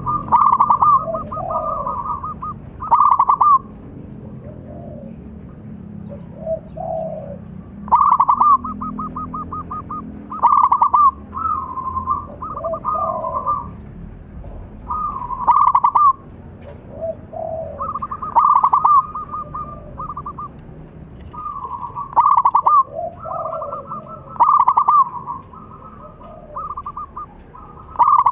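Zebra dove (perkutut) singing: repeated phrases of rapid, trilled coos, loudest every few seconds, with softer lower coos between them.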